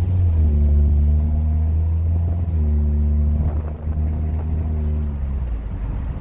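Hyundai Tucson 2.0 engine heard through an exhaust with the final muffler removed: a deep, loud drone whose pitch rises and falls twice, easing off near the end.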